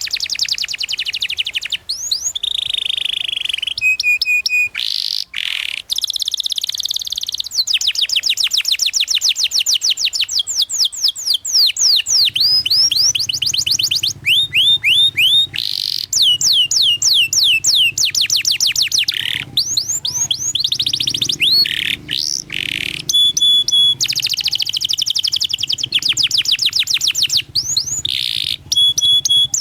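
Domestic canary singing a long, unbroken song of fast rolling trills: rapid runs of repeated sweeping notes broken now and then by short held whistles.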